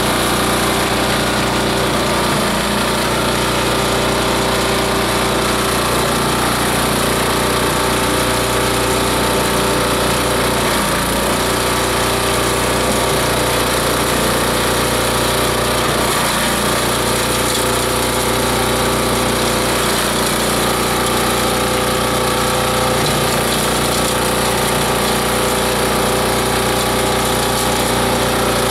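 Multi-blade chopper-shredder-grinder running steadily under load, its high-carbon steel blades grinding dry fibrous plant material, a constant loud mechanical din with a steady hum.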